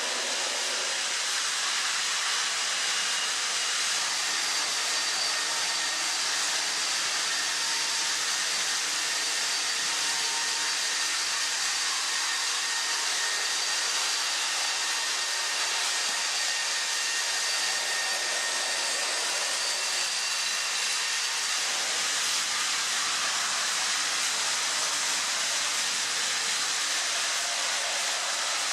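Battery-powered Plarail toy trains running on plastic track: a steady whirring hiss from the small motors and wheels, with faint high whines held throughout.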